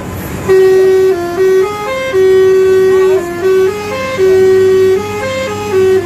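Bus 'telolet' Basuri musical air horn playing a tune: loud held notes stepping up and down in pitch, in several phrases with short breaks. A low steady hum runs underneath.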